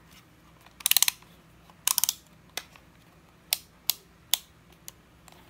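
Small hard plastic clicks and taps from handling a digital multimeter and its test probes while getting ready to check a 12 V battery's voltage: two quick runs of clicks about one and two seconds in, then several single clicks.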